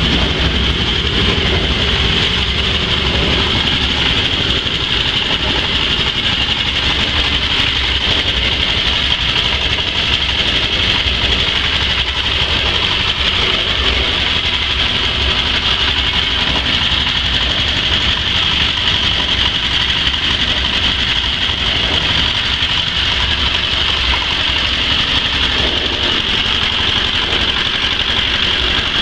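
Small single-cylinder horizontal diesel engine running steadily at an even speed, belt-driving a coffee-bean washing machine.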